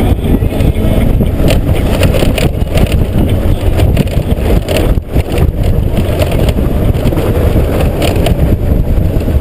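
Honda GoldWing GL1500 motorcycle riding over a gravel track: its flat-six engine runs steadily under heavy wind buffeting on a helmet-mounted microphone, with tyres on loose stones.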